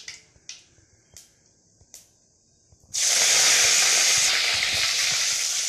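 Mustard seeds popping in hot oil in a kadai, a few sharp pops, then about three seconds in curry leaves hit the oil and it goes into a loud, steady sizzle.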